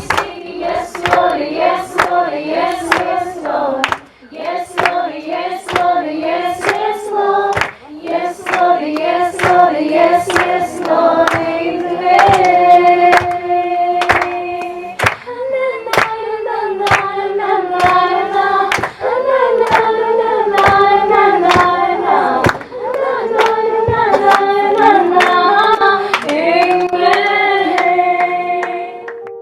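A group of voices singing a melody together, accompanied by rhythmic hand clapping.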